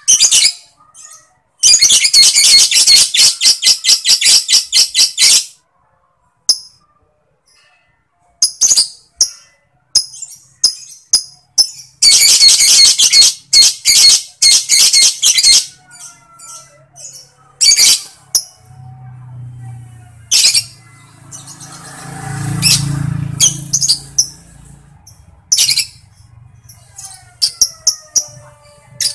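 Lovebird calling. It gives two long, rapid, high-pitched chattering trills (ngekek) of about four seconds each, with short clicking chips (ngetik) scattered between and after them. A low hum runs under the calls for a few seconds past the middle.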